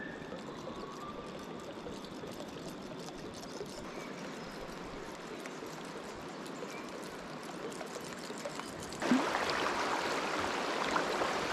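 River water running past a kayak: a steady wash of flowing water that jumps louder about nine seconds in, as the kayak reaches a shallow riffle of fast, broken water.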